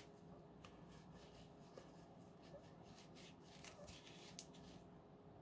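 Near silence with a few faint, light clicks and rustles of parts being handled.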